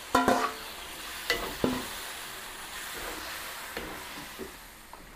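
Metal cooking utensil clanking and scraping against a pan while chicken is stirred in a sizzling sauce. A loud ringing clank comes just after the start, two more follow a second or so later, then lighter knocks over a steady sizzle.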